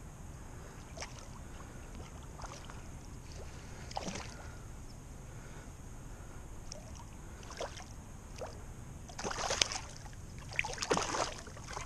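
Water splashing a few times near the end as a hooked striped bass is drawn to the bank and grabbed by hand, over a steady low rumble.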